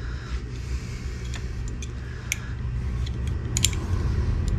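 Light metallic clicks and taps of small parts and hand tools as a nozzle is threaded by hand into an all-metal 3D-printer hot end's heater block and a pair of pliers is picked up. The clicks are scattered, with a small cluster about three and a half seconds in, over a steady low hum.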